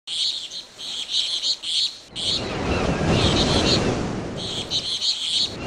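Birds chirping in short repeated bursts. About two seconds in, a low rumbling noise joins them and carries on.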